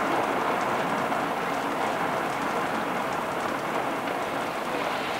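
Steady heavy rain pouring down.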